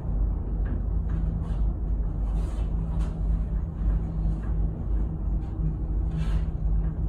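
Aerial tramway cabin riding along its cables, heard from inside: a steady low rumble with a faint hum, and faint clicks now and then.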